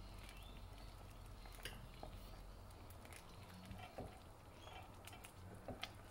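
Faint stirring of thick milky vermicelli in a metal pot with a silicone spatula: soft scraping with a few light taps against the pot, over a low steady hum.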